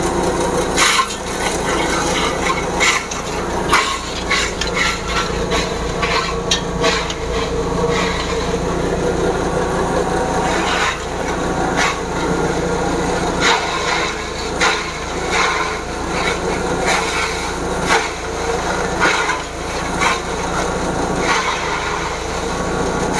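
Motorized grass chopper running at an easy, moderate throttle while its blades cut up hard sugarcane stalks: a steady engine drone under a rapid, irregular series of cracks and knocks.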